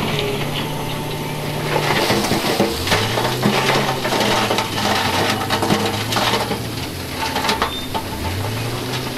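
Heavy diesel engines of a wheel loader and dump truck running, one revving up about three seconds in and again near the end, while loose rock clatters and scrapes as it is pushed and tipped.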